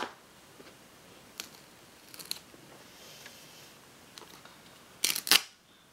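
Handling noises of cutting red duct tape with an X-Acto knife on a cutting mat: a sharp click at the start, a few faint ticks, and about five seconds in a louder, brief crackling rasp of the tape.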